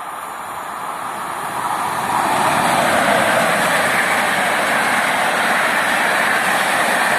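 Electric-locomotive-hauled InterCity passenger train passing at speed: the rush and rumble of wheels on rails grows over the first two seconds as the locomotive arrives, then stays loud and steady as the coaches go by.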